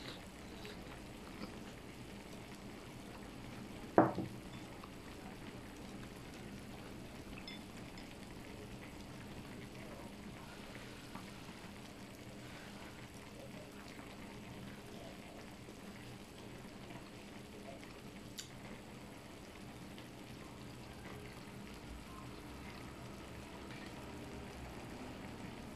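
Kimchi nabe hotpot simmering steadily, with one sharp knock about four seconds in.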